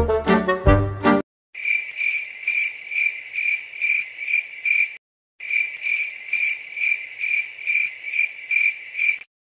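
Crickets chirping in a steady run of pulses, about two chirps a second, with a brief break about halfway through and a sudden cutoff near the end. Brass music ends in the first second, before the chirping starts.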